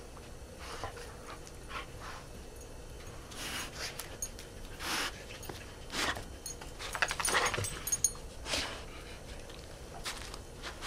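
Dogs moving about in deep snow, making a string of short, breathy, crunching noises, with a burst of crackly crunches a little after the middle.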